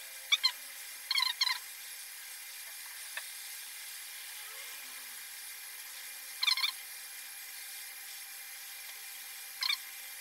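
Hot air rework station blowing at full airflow while preheating a phone logic board, a steady hiss. Six short high chirps sound over it: two near the start, two about a second in, one about six and a half seconds in and one near the end.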